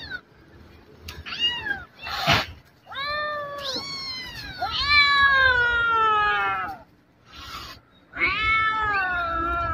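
Kittens stranded in a tree crying in distress: a run of high meows, the longest ones drawn out and falling in pitch, one about five seconds in and another near the end. A brief noisy burst about two seconds in.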